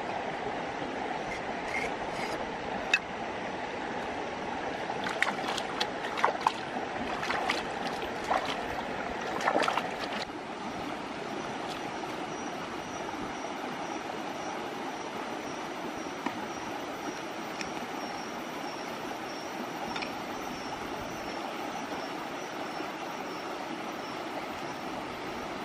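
Shallow rocky stream running steadily. Through the first ten seconds a cluster of splashes and sharp knocks comes from squid being cut with a knife and rinsed in the flowing water.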